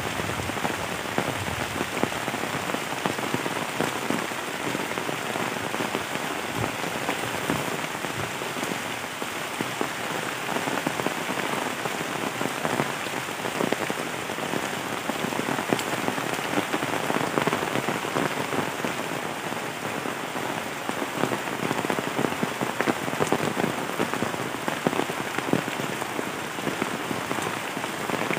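Heavy rain falling steadily on tree leaves and the ground, with many single drops heard as small ticks through the constant hiss.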